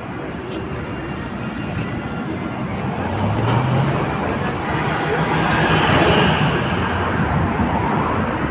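Road traffic: a motor vehicle drives past, its engine and tyre noise swelling to its loudest around the middle and then easing.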